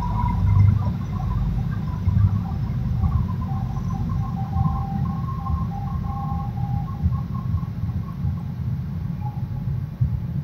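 MBTA commuter rail train pulling away from the platform: a steady low rumble from the train and its wheels, with a faint high whine that comes and goes.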